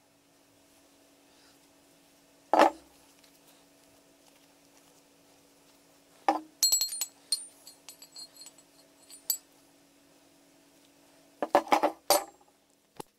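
Rusty steel axe heads being handled and set against each other on a wooden workbench. There is one sharp knock, then a run of clinks with a high metallic ring in the middle, and a quick cluster of knocks near the end.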